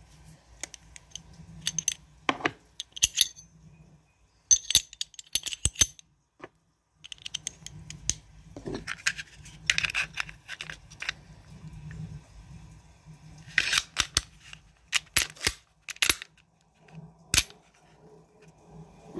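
Sig Sauer P365 pistol being reassembled by hand: sharp clicks and short scrapes of the slide, barrel and recoil spring being fitted and the slide being run onto the frame, in irregular clusters with a single sharp click near the end.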